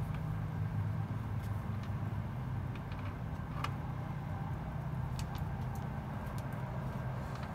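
A steady low hum from a running motor or engine, with a few faint ticks over it.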